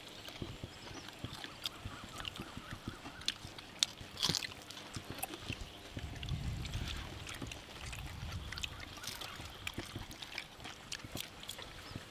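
Scattered small clicks and smacks of people eating grilled beef with their fingers: picking meat off bones, chewing and lip smacks. There are a couple of brief low rumbles around the middle.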